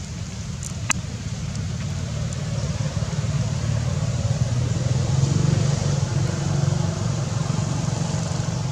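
Low rumble of a passing motor vehicle, growing louder toward the middle and easing off near the end, with one sharp click about a second in.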